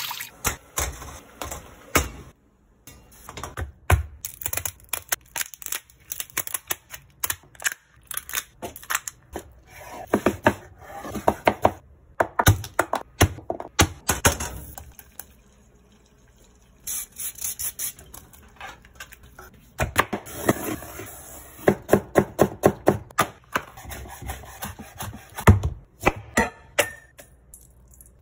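Kitchen prep sounds: runs of quick knife knocks on a bamboo cutting board, several a second, broken by short pauses, with odd thuds and clinks of a steel bowl and utensils.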